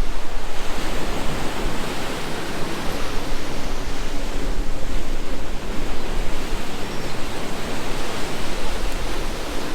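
Heavy storm surf breaking and washing ashore: a steady, loud rushing noise that swells and eases slightly.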